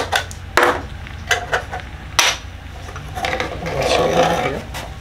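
Cut-off saw blades and metal parts handled on a workbench: a few sharp clacks and knocks in the first couple of seconds, then a second or so of rubbing and scraping.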